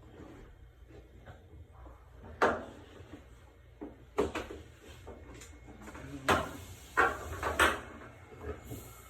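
Clunks and knocks of tools and parts being handled on a washer during a door boot replacement: five sharp knocks, the first about two and a half seconds in and the last three coming close together, over a faint steady low hum.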